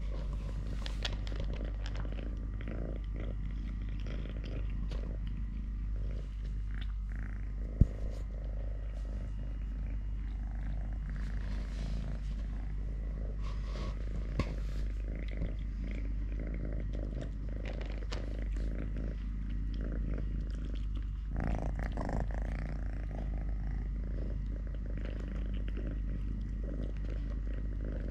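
Kitten purring steadily, with a sharp click about eight seconds in and a brief rustle a little past twenty seconds.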